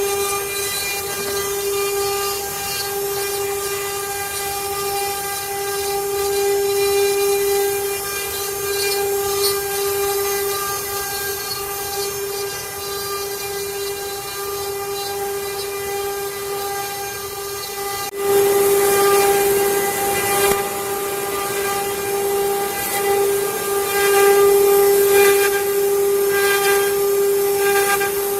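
CNC router spindle whining at a steady high pitch over a hiss as it machines wood. About two-thirds of the way through, the sound jumps suddenly louder and turns rougher and more uneven.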